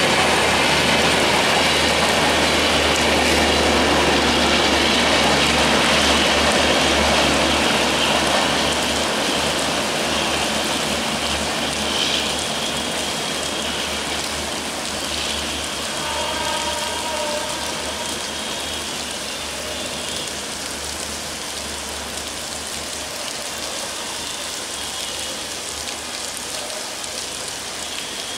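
Sundarban Express passenger coaches rolling past on the track in heavy rain. The train's rumble fades gradually from about eight seconds in as it moves away, leaving the steady hiss of rainfall.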